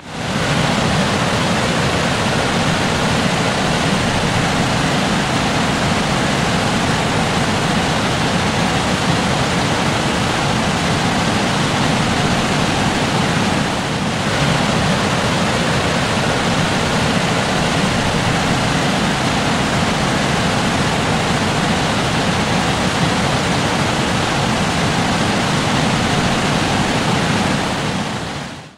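Water rushing steadily as it spills through a row of automatic tilting weir gates and down the face of a reservoir's overflow, with a brief dip in level about halfway through.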